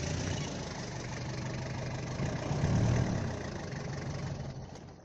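Stripped-down Toyota Hilux's engine running steadily, swelling louder about three seconds in, then dying away near the end.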